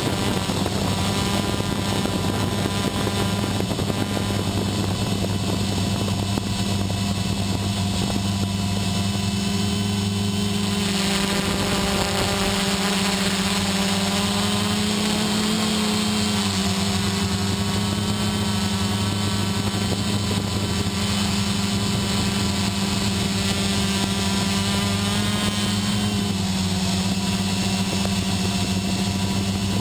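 XP2 quadcopter's electric motors and propellers running in flight, heard close up from the camera on board: a steady hum. The pitch rises slightly about halfway through and dips again near the end.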